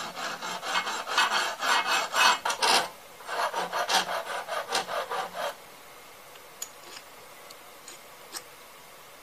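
Flat hand file scraping back and forth across a metal part clamped in a bench vise, taking off a burr left by drilling. Quick strokes come in two runs with a short break between. They stop a little past halfway, leaving a few light clicks.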